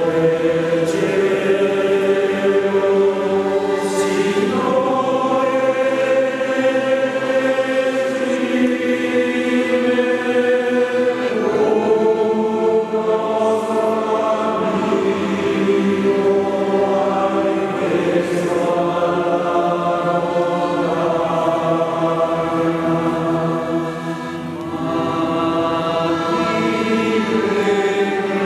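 Male choir singing slow, sustained chords in a church, accompanied by accordion, the harmony shifting every few seconds in long phrases.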